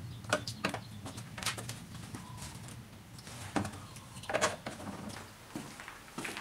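Scattered light knocks and clicks from things being handled, over a faint low steady hum.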